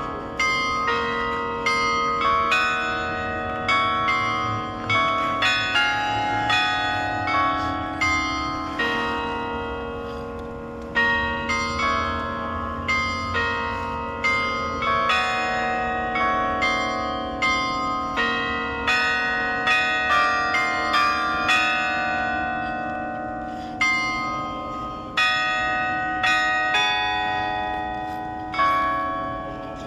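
Carillon bells playing a slow tune, notes struck one after another about every half second to second, each ringing on under the next, with short lulls between phrases.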